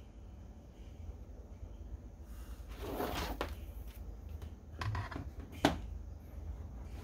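Handling noise from a handheld digital multimeter: a rustle about three seconds in, then a soft knock and a sharp click just before six seconds as the meter is set down on the cutting mat.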